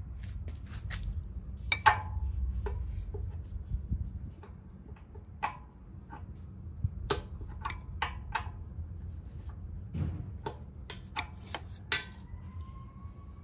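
Scattered metallic clicks and taps of Allen keys (a 6 mm T-handle and a small hex key) against a hex bolt and nearby metal as the bolt is broken loose and turned out, over a steady low rumble. The two loudest clicks come about two seconds in and near the end.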